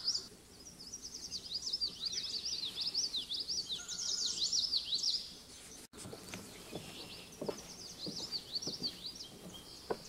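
Common yellowthroat song: repeated phrases of quick high notes for about five seconds, then it breaks off. After that, footsteps knock on a wooden boardwalk while more birdsong goes on, fainter.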